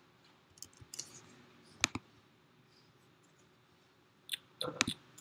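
Faint, irregular clicks from a laptop being operated: a few single clicks in the first two seconds, the loudest about two seconds in, and a short cluster near the end.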